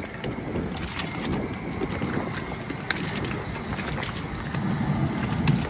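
Steady rushing rumble of a propane crawfish cooker's burner, with scattered light knocks and clicks as ingredients go into the pot.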